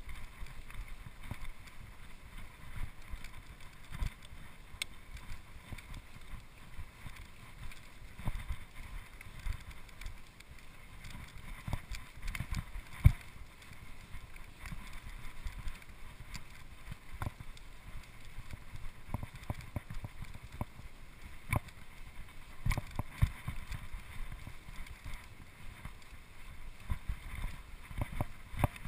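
Mountain bike riding over a grassy and rocky dirt trail: a continuous low rumble of the tyres and frame with frequent knocks and rattles as it goes over bumps, the sharpest about 13 seconds in.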